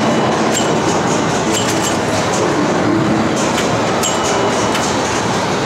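Steady din of a busy pinball hall full of machines being played. Sharp mechanical clicks and clacks come through it irregularly, with a few brief ringing tones.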